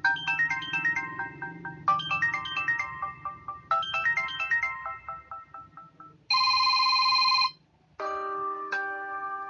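Samsung Galaxy Pocket stock phone tones played one after another. A bright synthesized ringtone melody repeats its phrase three times, about every two seconds, and stops. A steady electronic beep lasting about a second follows, and after a short gap a new chime-like tone begins.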